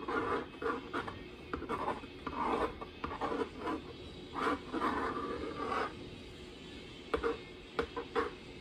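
A cake scraper dragging around buttercream on a cake as the turntable turns, a run of scraping strokes, smoothing the frosting; a few sharp taps near the end.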